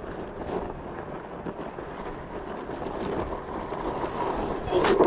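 Onewheel electric board riding through soft sand: a steady rushing noise of the tire churning sand, with wind on the microphone. Near the end it turns into a louder rush of noise as the board bogs down in the too-soft sand.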